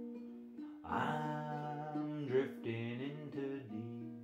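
Ukulele picked in a stripped-down hillbilly style. From about a second in, a man sings long held notes that then slide in pitch.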